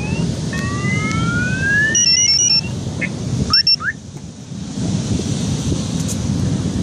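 Car alarms sounding, with repeated rising sweeps and a stepped warbling tone in the first few seconds, over a steady low rumble.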